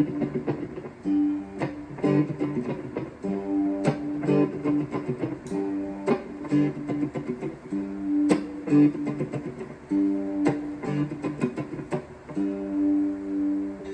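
Guitar being played: plucked notes and strummed chords in a recurring pattern.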